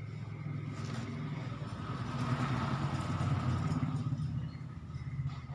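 A motor vehicle passing by: a low engine sound that grows louder through the middle and fades near the end.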